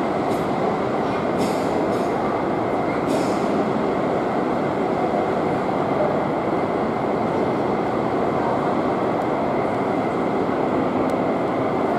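Boeing 767-300ER's twin jet engines running at taxi power: a steady, dense rush of noise with a thin high whine over it.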